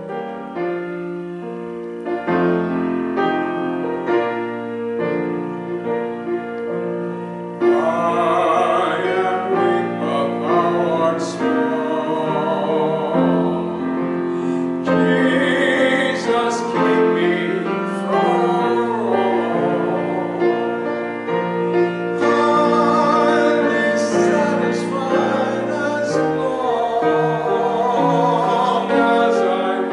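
Piano playing alone for about the first eight seconds, then a man comes in singing a solo with vibrato over the piano accompaniment.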